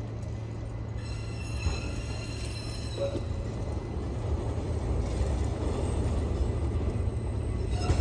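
City tram approaching on its rails: a steady low rumble that slowly grows louder, with a high whine of several tones for about two seconds, starting a second in, and again near the end.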